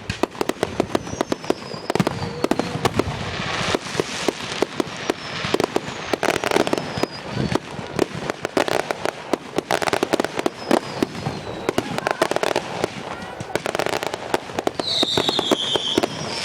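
Fireworks finale: a dense, rapid barrage of bangs and crackles without a break, with a few high whistles from shells among them.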